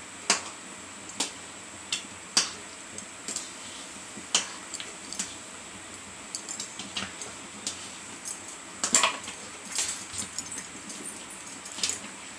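A spatula stirring thick semolina in a steel kadai, kept moving so it does not settle and stick to the bottom, with irregular sharp knocks of the spatula against the pan and the clink of bangles on the stirring wrist. There is a quick run of clinks about nine to ten seconds in.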